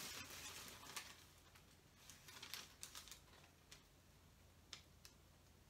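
Faint, scattered light clicks and taps from hands handling something, about a dozen spread unevenly over several seconds, with a small cluster near the middle; otherwise near silence.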